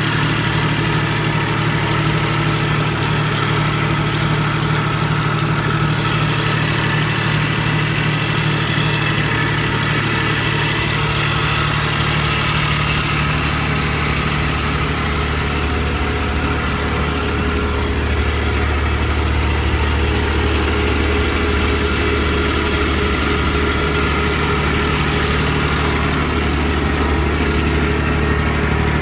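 Sakai GW 25 road roller's engine idling steadily; around the middle its hum shifts to a deeper note.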